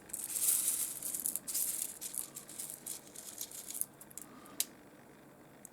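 Small pieces of rough opal rattling and clicking against one another as they are moved about, a dense clatter for about four seconds, then one sharp click.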